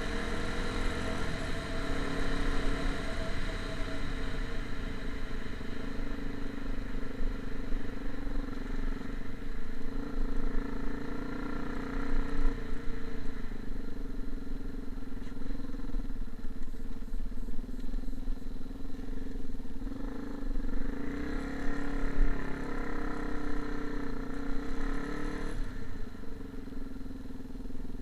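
A motor vehicle's engine running continuously, its pitch shifting up and down several times.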